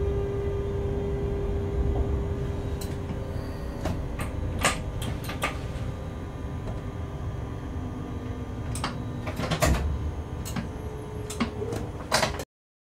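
Low steady rumble and hum inside a locomotive cab, with about a dozen sharp clicks and knocks from cab controls and fittings being handled. The loudest knocks come around five and ten seconds in. The sound cuts off abruptly just before the end.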